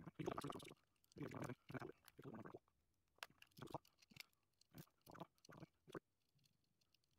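Handling noise from a 3D-printed plastic switch plate, a toggle switch and its wires being fitted together by hand: a few short scraping rustles in the first couple of seconds, then a string of small plastic clicks and taps.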